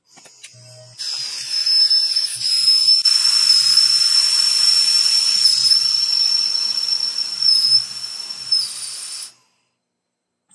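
CNC mill spindle whining at high speed while drilling holes in a steel die blank, over a steady hiss from a spray nozzle aimed at the drill. The whine dips briefly in pitch a few times, then the whole sound cuts off abruptly about nine seconds in.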